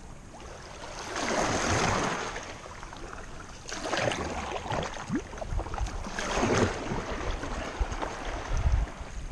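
Double-bladed kayak paddles dipping and pulling through calm seawater, three splashy swishes a couple of seconds apart as the tandem kayak gets under way.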